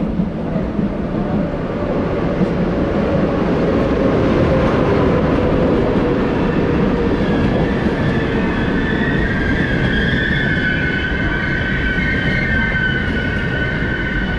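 A train running through a station with a steady, heavy rumble; about halfway through, several high squealing tones join in and hold.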